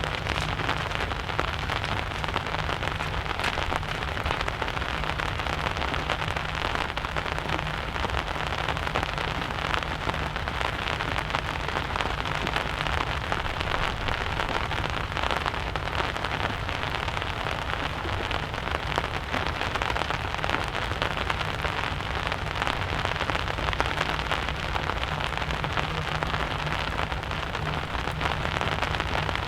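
Steady rain falling, a dense run of fine drop ticks, over a low steady rumble.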